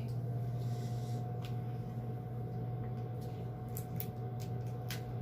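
Tiger shrimp being peeled and eaten by hand: soft wet squishing with a few short, sharp clicks of shell, over a steady low hum.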